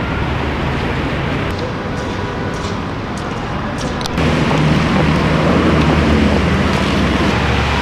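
City street traffic noise: a steady rumble of passing vehicles. About four seconds in the sound changes abruptly to a louder, lower engine rumble.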